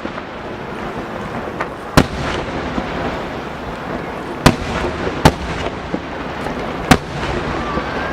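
Starmine fireworks barrage: shells bursting with four sharp booms at uneven gaps over a continuous crackle and rumble of smaller bursts.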